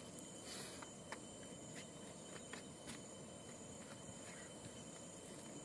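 Faint eating sounds: chewing and mouth clicks as a handful of rice is eaten, and fingers scooping rice off a banana leaf, heard as scattered soft clicks over a quiet hiss. A faint steady high-pitched tone runs underneath.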